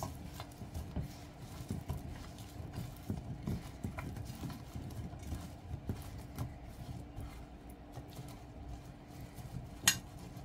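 Hands tossing and rolling asparagus spears in a glass baking dish: soft, irregular knocks and taps of spears and fingers against the glass, with one sharper click near the end.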